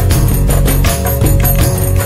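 Background music with a quick, steady percussive beat over held notes and a strong bass.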